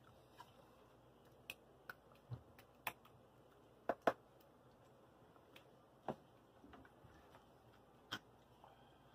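Scattered light taps and clicks of a plastic ladle and wooden spatula against a skillet and a foil baking pan as meat sauce is spooned out and spread, the loudest a quick double tap about four seconds in.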